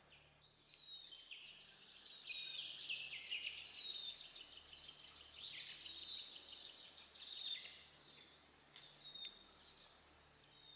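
Wild birds singing: a busy chorus of high chirps, trills and whistles that builds in the first second, is fullest through the middle and thins out near the end to a few sharp chips.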